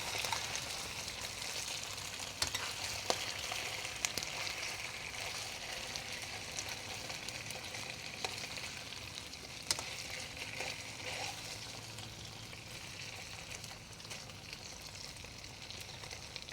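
Cubes of radish cake sizzling in hot lard in a pan while they are turned and stirred with a spatula, with a few sharp clicks of the spatula against the pan. The sizzle eases a little toward the end.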